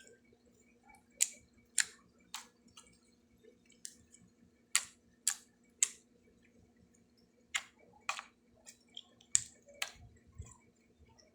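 Orange honey slime being squeezed and pressed by hand, making irregular sharp clicks and pops, over a faint steady hum.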